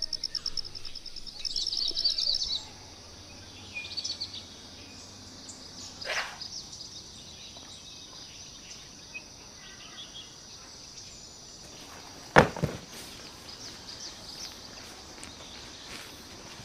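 Birds chirping in quick repeated high notes at the start, over steady outdoor background noise, with one sharp thump about twelve seconds in.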